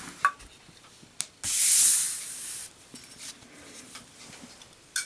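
Zippo windproof lighter during a lit drop test: a small metallic click, then a hiss lasting about a second, then a sharp click near the end as the hinged lid drops shut on the flame.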